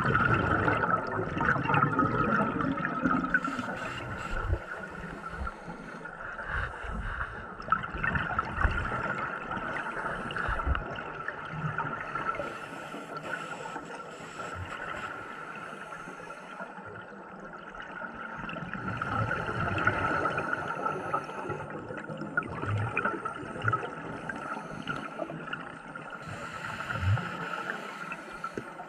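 Underwater sound of scuba breathing through a regulator: exhaled bubbles gurgling and rumbling, swelling loudest near the start and again about twenty seconds in. A steady faint high tone runs underneath.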